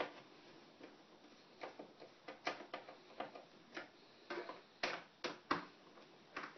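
Irregular small clicks and ticks of a screwdriver tightening the screws of an all-in-one computer's back cover, a few a second.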